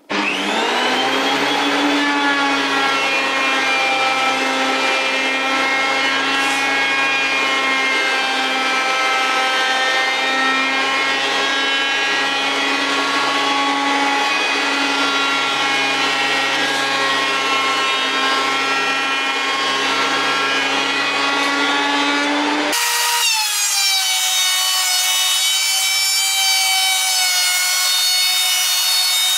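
Benchtop thickness planer running and planing wooden boards, its motor whining with a loud, steady cutting noise. The whine rises as the motor spins up at the very start, and about three-quarters of the way through the sound changes abruptly to a higher, thinner tone.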